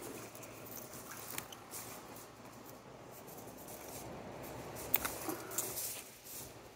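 Faint rustling and small crackles of dry natural plant-fibre strands being handled and twisted between the fingers into reverse-wrap cordage, with a few sharper clicks about a second and a half in and again about five seconds in.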